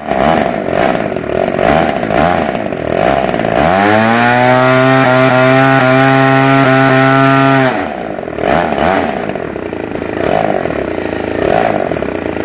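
Radio-controlled model airplane engine running with its propeller: an uneven, pulsing idle, then a quick rising rev about three and a half seconds in, held steady at high speed for about four seconds before dropping back to the uneven idle.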